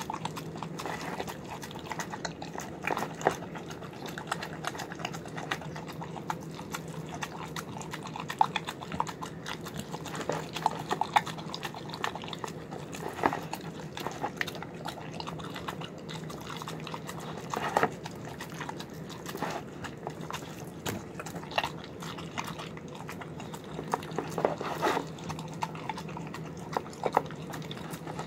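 A dog eating a wet mash of chicken, brown rice, egg and vegetables from a plastic bowl: continuous wet chewing and smacking, broken by irregular short sharp clicks.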